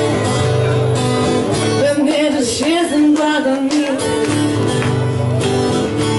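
Live acoustic duo music: a strummed acoustic guitar with a voice singing a wavering melody over it.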